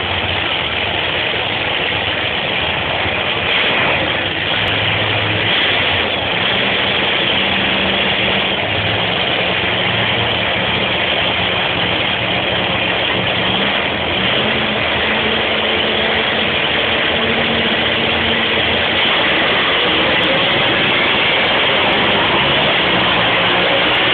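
Drag race cars' engines running loud and continuously, with low engine notes that shift in pitch several times.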